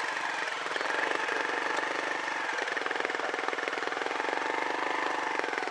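Trials motorcycle engine running steadily at low revs, with rapid, even firing pulses.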